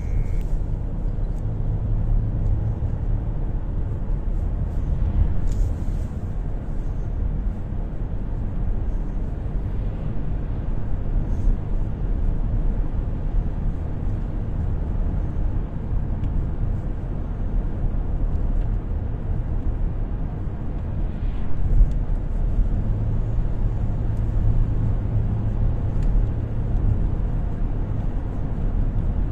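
Car driving steadily along an asphalt road, a low, even rumble of engine and road noise heard from inside the cabin.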